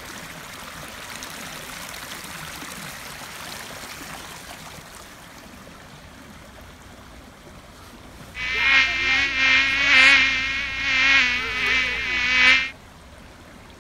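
Shallow stream running over rocks. About eight seconds in, a loud, steady buzz cuts in abruptly and stops just as suddenly about four seconds later.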